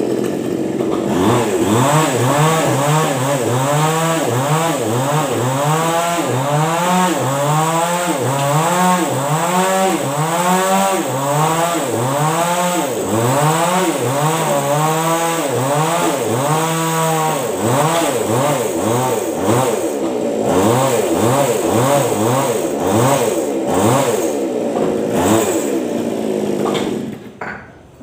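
Two-stroke chainsaw running at high throttle while cutting a tree limb, its pitch rising and falling about once a second as the cut loads it, then the saw drops away near the end.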